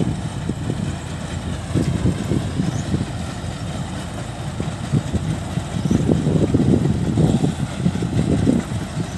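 Kubota rice combine harvesters' diesel engines running, a low uneven rumble that swells louder about six seconds in.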